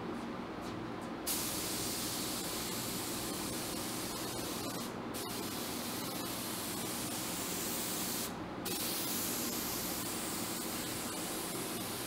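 HVLP spray gun spraying precatalyzed lacquer vinyl sealer: a loud, steady hiss of atomizing air that starts about a second in and stops twice for a moment, once near the middle and once about two-thirds through. Under it runs a constant low background hum.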